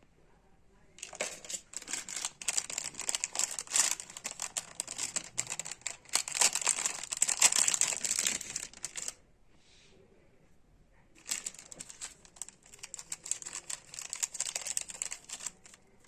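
Packaging crinkling and rustling as it is handled and opened. It comes in two spells: about eight seconds starting a second in, then about four more seconds near the end.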